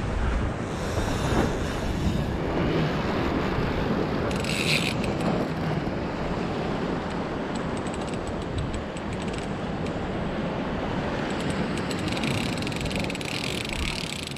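Wind buffeting the microphone over surf, with the mechanical clicking and whirring of a large saltwater spinning reel. A brief hiss comes about four and a half seconds in.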